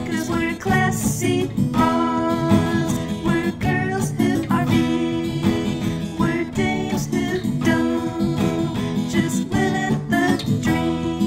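Theme song: a strummed acoustic guitar with a singing voice.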